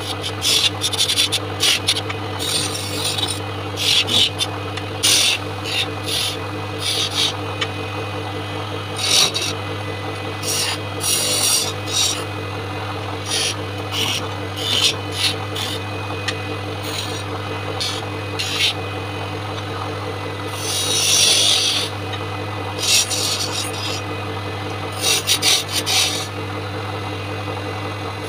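Wood lathe motor humming steadily while a hand chisel cuts the spinning coconut-wood blank in short, irregular scraping strokes. One longer cut comes about three quarters of the way through.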